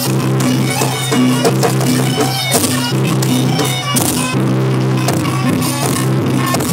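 Javanese gamelan ensemble playing fast sampak music for a jaranan dance: a held low note under a repeating metallic melody, with sharp drum strokes.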